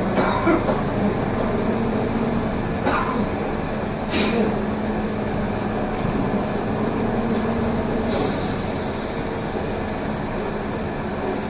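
Inside a moving trolleybus: the steady rumble of the ride with a constant low hum, a few sharp knocks and rattles, and a hiss about eight seconds in that fades over a couple of seconds.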